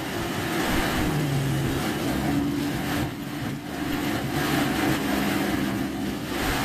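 Car engine running with steady road and tyre noise, its low hum stepping up and down in pitch as the car drives.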